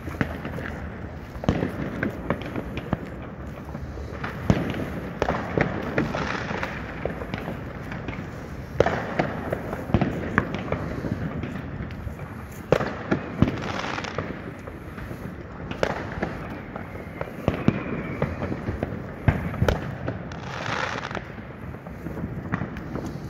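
New Year's Eve fireworks and firecrackers going off all around: a continual run of sharp bangs and pops at irregular intervals, some loud and close, others distant, with a brief hissing burst late on.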